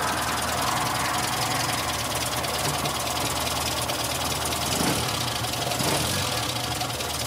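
1968 Morris Minor's 1098 cc A-series four-cylinder engine idling steadily, heard close up in the open engine bay.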